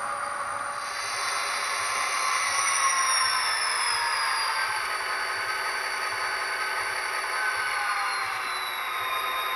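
HO scale model diesel locomotive running along the track, a whine of several tones from its motor and drive that slowly falls in pitch.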